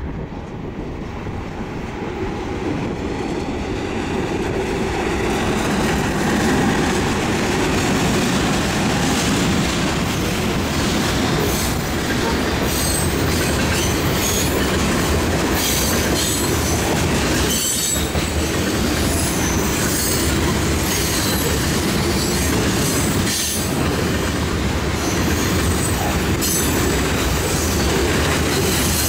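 Diesel-hauled freight train on the mainline, growing louder over the first several seconds as it approaches, then a steady run of freight cars rolling past. Its wheels click over rail joints and squeal through the later part.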